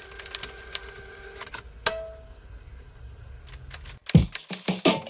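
Rapid typewriter-style key clicks that stop about a second and a half in, then a single click with a short ringing tone. Near the end, music with a strong beat starts.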